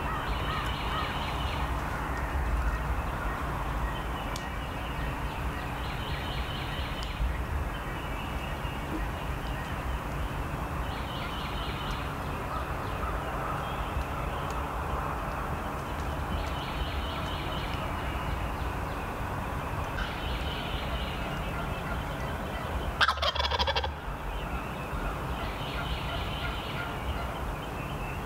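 Osceola wild turkey gobbling again and again, a short rattling call every few seconds, over a steady low rumble. About 23 seconds in, a single loud shotgun blast rings out.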